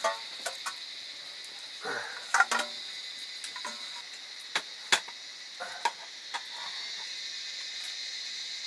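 Insects chirping in a steady high-pitched chorus, with scattered sharp clicks and knocks over it, the loudest about two and a half and five seconds in.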